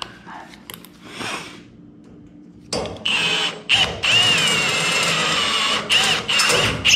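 Power drill running, drilling holes in a 6061 aluminum sheet panel out to 10-32 tap-drill size. It starts nearly three seconds in with a short burst, then a longer run of about two seconds and a couple of shorter bursts, its whine wavering as the bit cuts through.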